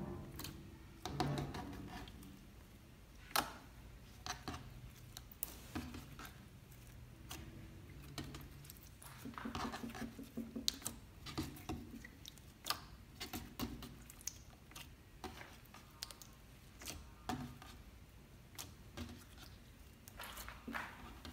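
Clear glue slime being pressed, poked and stretched by hand on a wooden tabletop: irregular sticky clicks, crackles and squelches as the slime pulls away from the fingers and the table.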